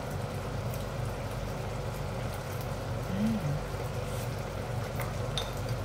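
Coconut-milk shrimp stew simmering in a wok on an induction cooktop: a steady hum with a faint hiss and a few light pops of bubbles.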